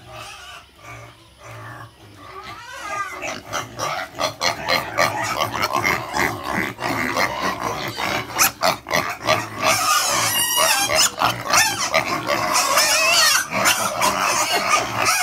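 Several piglets squealing and calling at once, getting louder about three seconds in and staying loud, with high wavering squeals about ten seconds in.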